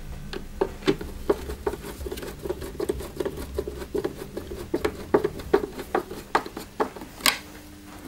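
Screwdriver driving a screw into the plastic motor housing of a Dyson DC08 vacuum cleaner: a run of small irregular clicks and scrapes as the screw is turned, with one sharper click near the end.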